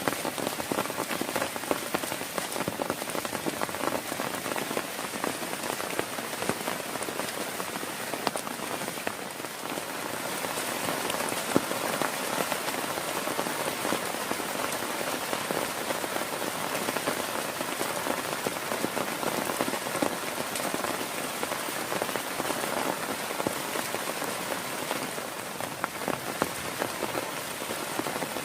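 Heavy rain falling steadily, with a dense patter of individual drops striking close by.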